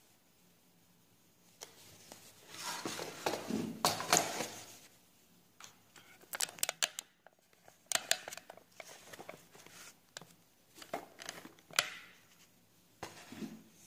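Handling noise as the painting paper and camera are moved: rustling, loudest about three to four seconds in, then scattered clicks and taps and brief rustles.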